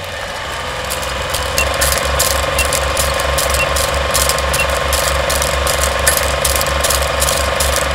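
Film projector running sound effect: a steady mechanical clatter with a low pulse about five times a second, many clicks and a faint hum.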